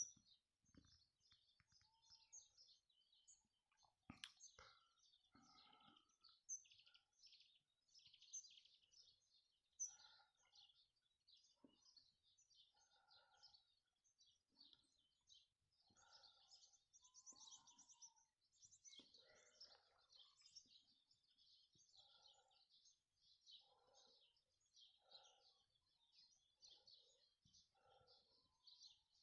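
Faint dawn-chorus-like birdsong: many small birds twittering and chirping high, with a lower call repeating about once a second through the second half. A single sharp click about four seconds in.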